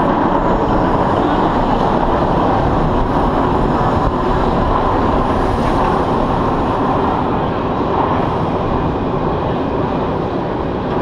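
GateKeeper's B&M wing coaster train rolling slowly along the steel track out of the station: a steady, even noise of wheels on track, with wind on the ride camera's microphone.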